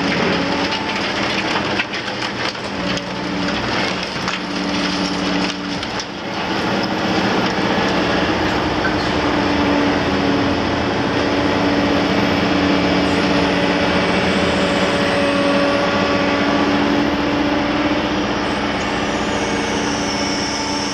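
Liebherr R 950 Demolition excavator at work: its engine and hydraulics drone steadily while masonry and concrete crack and crumble under the demolition tool. The crackling of breaking debris is densest in the first six seconds, after which the machine's drone is the main sound.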